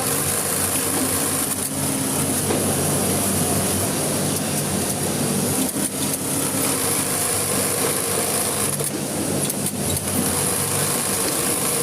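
Electric sewing machine running in long steady stretches, with a few brief breaks.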